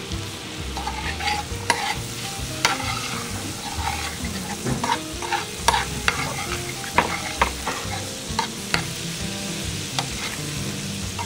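Bananas frying in butter in a metal skillet, sizzling, while a spoon stirs them, with sharp clicks and taps of the spoon against the pan throughout.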